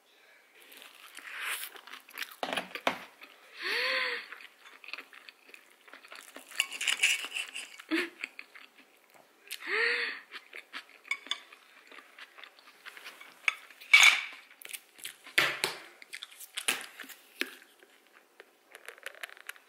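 Knife and fork clinking and scraping on a ceramic plate while an egg wrap is cut and eaten, with two short squeals of the knife dragging on the plate and one louder clink about two thirds of the way through.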